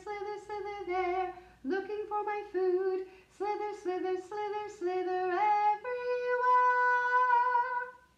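A woman singing a children's song unaccompanied, in short phrases of a few notes each. It ends on one long held note.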